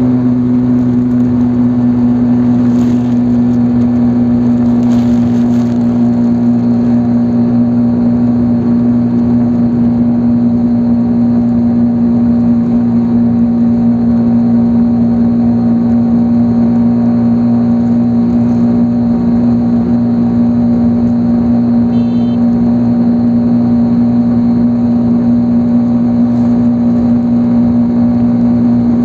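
Motorcycle engine running at a steady cruising speed, its note unchanging, over a constant rush of road noise.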